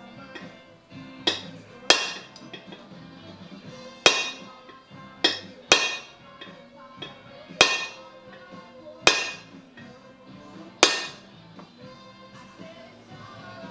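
Hammer strikes on metal: about eight sharp, ringing taps at uneven intervals, from tapping parts into a BMW R1150GS transmission during assembly. Background music plays throughout.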